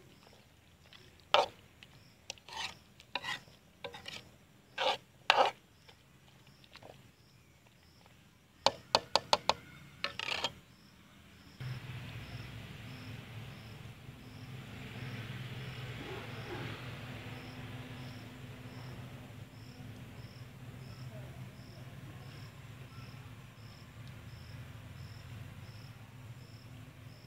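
Metal spoon scraping and knocking against the side of a metal cooking pot while mixing thick chicken masala: a string of sharp scrapes over the first ten seconds or so, with a quick flurry near the end of that stretch. Then a steady low hum, with a cricket's regular faint chirps running underneath throughout.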